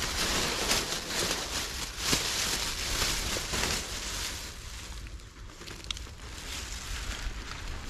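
Rustling and crackling of cabbage heads and leaves being handled and packed, louder for the first four seconds and quieter after, with a sharp click about six seconds in.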